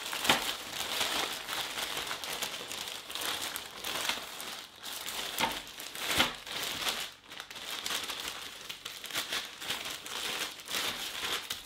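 A plastic zip-lock bag and foil-wrapped packets crinkling and rustling as they are handled and the packets are pulled out of the bag, with a few louder crinkles among the steady crackle.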